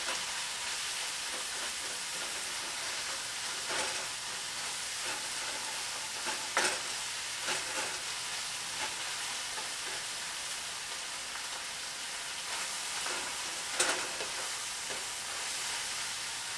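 Ground beef, spinach and mushrooms sizzling steadily in a frying pan while being stirred with a wooden spatula, with a few sharp scrapes and knocks of the spatula against the pan.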